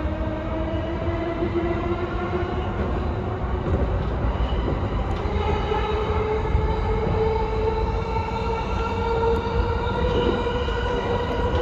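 Yamanote Line electric train heard from the driver's cab: a steady rumble of wheels on track under the whine of the traction motors, which climbs slowly in pitch as the train picks up speed, a second, higher whine joining about five seconds in.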